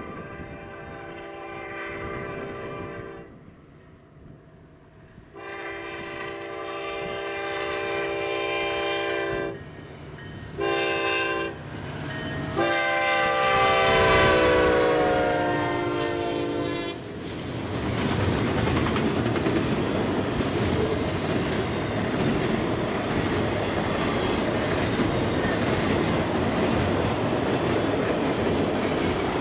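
A diesel freight locomotive's air horn sounds long, long, short, long, the standard grade-crossing signal. The last long blast is the loudest and drops in pitch as the lead engines pass. After that, a long string of double-stack intermodal container cars rolls by with a steady rumble of wheels on rail.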